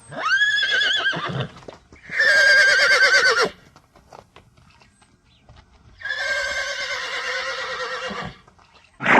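A horse whinnying: three long, quavering neighs in a row, then a fourth short, loud one starting near the end. Faint knocks can be heard in the quiet gaps between calls.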